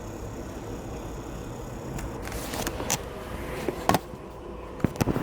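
Sharp metallic clicks and clinks of tools and parts: a few scattered ones, a louder one about four seconds in and a quick cluster near the end, over a steady low rumble.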